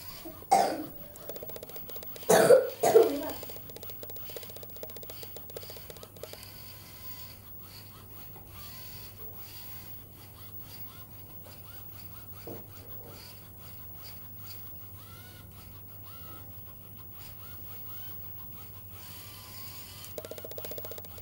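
Small DC gear motors of an Arduino-controlled toy robot car driving it, heard as a fast-pulsing buzz for a few seconds and again near the end. A person coughs three times within the first three seconds; these are the loudest sounds.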